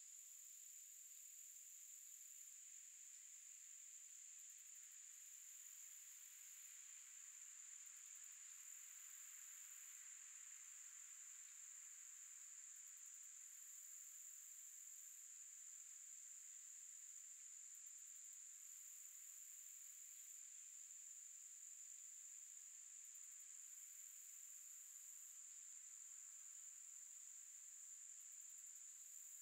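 Faint chorus of summer insects: one steady high-pitched trill, with a second, even higher-pitched insect calling in stretches of a second or two every few seconds.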